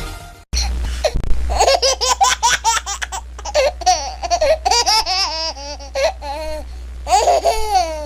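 Baby laughing in quick repeated high-pitched bursts of giggles, with a louder stretch of laughter near the end, over a steady low hum.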